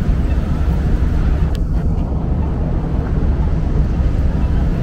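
City street ambience at a wet intersection: a steady low rumble of traffic with wind buffeting the microphone, and a brief click about one and a half seconds in.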